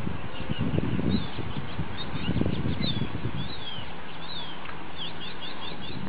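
Small birds chirping: repeated short, high, sweeping chirps, some in quick runs of several, over a low steady rumble.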